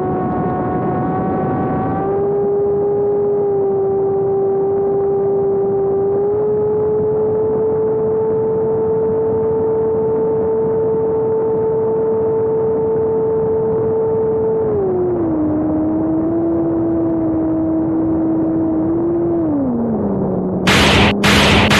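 Electric motors and propellers of a Twin AeroScout RC plane droning steadily in flight, the pitch stepping up and down as the throttle changes, then falling to a lower hum near the end. In the last second loud bursts of rushing noise cut across it.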